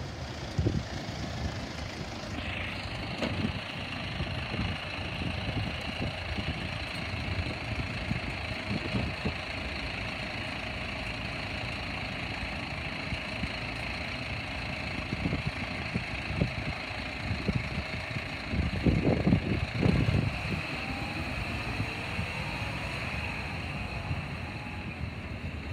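Volvo side-loader garbage truck's diesel engine running slowly as the truck creeps past and pulls up, with a steady high whine that joins in about two seconds in. A few louder low rumbles come near the end.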